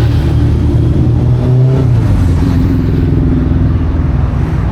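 V8 engine running at low revs, with small rises and falls in pitch.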